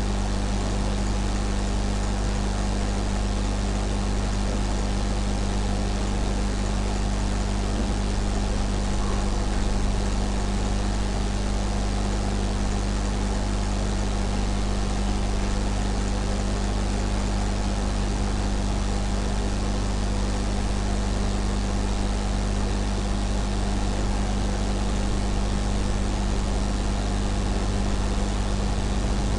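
Steady low hum with an even hiss underneath, unchanging throughout: the background noise of the recording setup.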